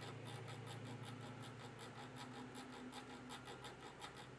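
Rapid, faint clicking, about seven clicks a second, from a power amplifier's gain control knob being turned all the way round to work DeoxIT contact cleaner into its dirty, scratchy potentiometer; the clicking stops near the end. A steady low hum runs underneath.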